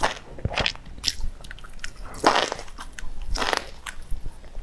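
Close-up eating sounds of a bundle of chili-coated enoki mushrooms: wet bites and chewing in irregular short bursts.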